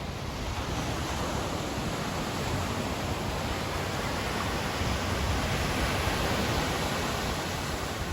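Ocean surf on a beach: rushing, churning water of breaking waves that swells after the first second and drops off near the end.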